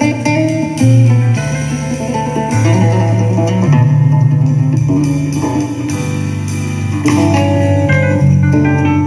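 Music playing through the loudspeaker of a repaired vintage valve radio tuned to a station, with held notes and a strong bass line.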